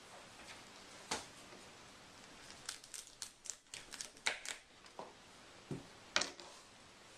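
Broccoli being handled and cut into florets on a plastic cutting board: a knock about a second in, a quick run of crisp crackling snaps in the middle, then a few more knocks near the end.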